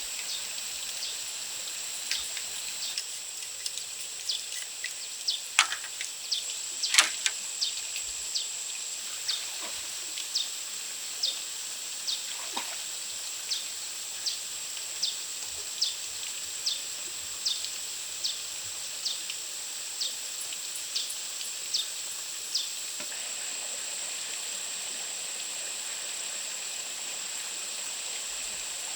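Rainforest ambience: a steady high insect drone, with a run of short sharp ticks repeating about every 0.7 s and two louder knocks early in the run. The ticks stop a few seconds before the end.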